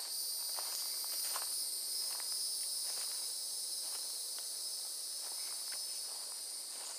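A steady, high-pitched chorus of insects in the woods, with the soft footsteps of someone walking along a leaf- and needle-strewn trail.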